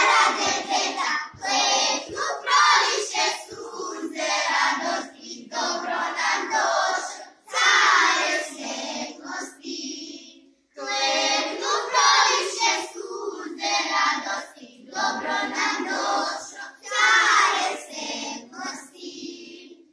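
A group of children singing a Serbian Christmas song together, in sung phrases with a brief pause about halfway through.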